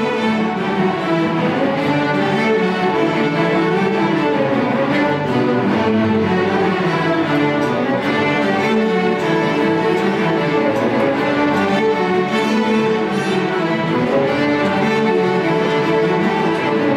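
A large youth string ensemble of violins and cellos playing a piece together with bows, at a steady level throughout.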